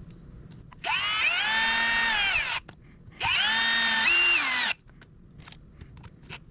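Power drill-driver running in two bursts of under two seconds each, each spinning up, holding speed and winding down; the second one shifts pitch partway through as it comes under load. A few light clicks follow.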